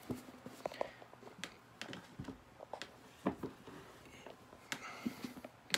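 Faint, irregular clicks and taps of close handling noise, a few small knocks every second.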